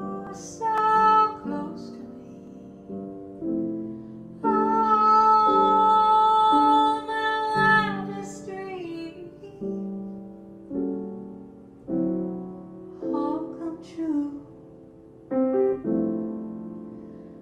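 A woman singing while accompanying herself on a grand piano: sung phrases over piano chords struck about once a second, with one long held note of about three seconds midway.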